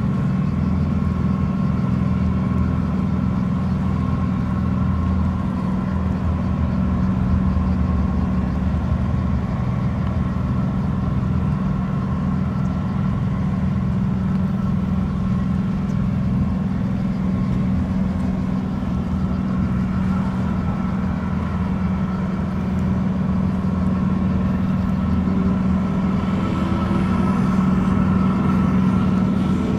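A ship's engine droning steadily: a loud, even low hum with fainter higher tones, over a wash of water noise.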